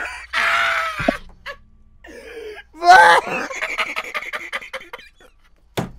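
Loud laughter in bursts, with a sharp, loud outburst about three seconds in that breaks into rapid pulses.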